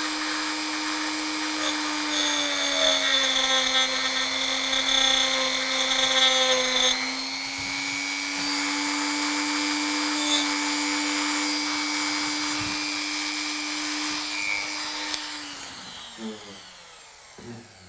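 Dremel rotary tool with a cutting disc running with a steady whine while cutting a gap across copper-clad plates; the grinding is heavier for the first several seconds. Near the end the motor is switched off and winds down.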